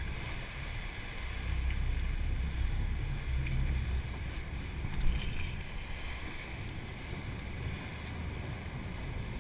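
Sportfishing boat's engines running steadily under way, with water rushing in the churning wake and wind on the microphone; a short knock about five seconds in.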